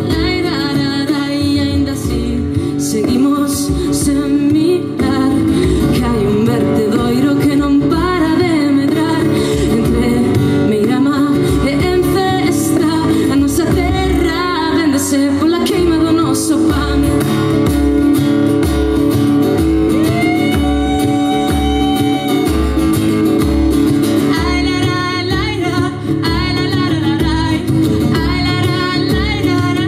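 Live acoustic folk song: a woman singing over a strummed acoustic guitar, with a hand-played frame drum keeping a steady beat.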